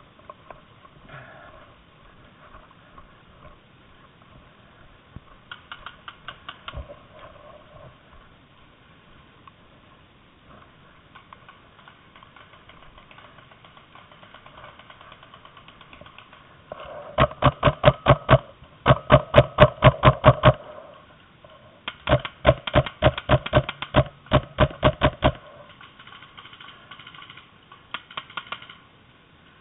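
Paintball markers firing rapid strings of shots at roughly six to eight shots a second. There are two long, loud strings in the second half and shorter, quieter strings before and after them.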